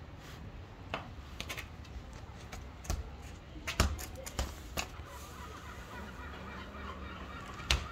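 Outdoor street background noise with a few sharp, irregular taps and knocks, the loudest about four seconds in.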